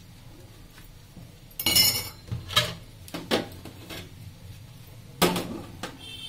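Steel spoons and a ceramic plate clinking and clattering against each other and the stainless steel sink during hand dishwashing: a burst of clatter with a metallic ring about one and a half seconds in, a few single clinks, and a sharp knock near the end.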